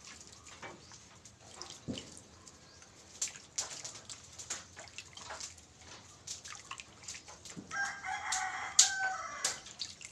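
Wet squelching, dripping and small splashes as hands knead and squeeze grated coconut in a basin of water, pressing out coconut milk. About eight seconds in, a rooster crows for about a second and a half.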